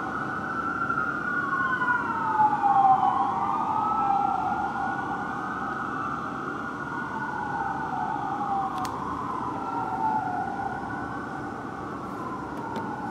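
Two fire truck sirens wailing together, each sweeping slowly up and down in pitch, out of step so that their wails cross.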